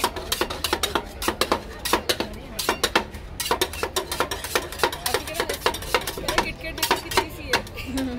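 Two steel spatulas chopping and scraping ice cream on the steel cold plate of a rolled ice cream machine: quick, irregular metal-on-metal clacks, several a second, with scraping between them as the mix is chopped up.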